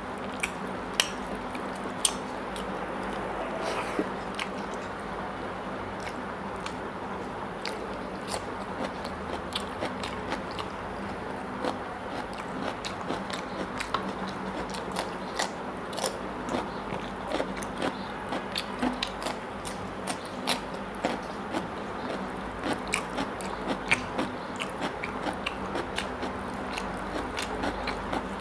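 Close-miked chewing and mouth sounds of a man eating mutton curry and rice by hand: a steady run of wet smacks and small clicks throughout.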